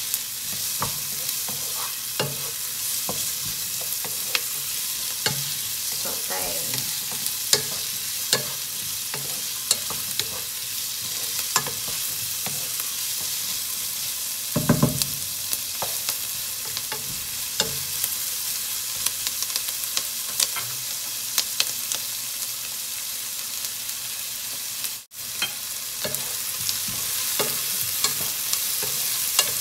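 Diced onion, garlic and ginger sizzling steadily in a non-stick frying pan while a wooden spatula stirs them, scraping and tapping against the pan. A louder knock comes about halfway through, and the sound cuts out for an instant a few seconds before the end.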